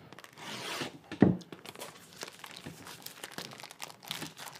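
Plastic shrink wrap on a trading-card box being slit and torn open, crinkling, with one sharp, louder crackle about a second in and smaller crackles after it.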